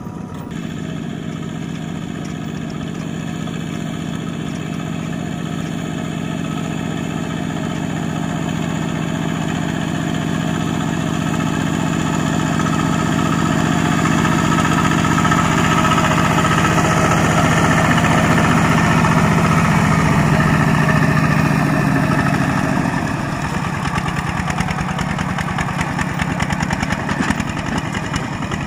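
Single-cylinder diesel engine of a two-wheel walking tractor running under load as it hauls a trailer through deep mud. It grows louder as it nears, then drops off a little over twenty seconds in and runs unevenly.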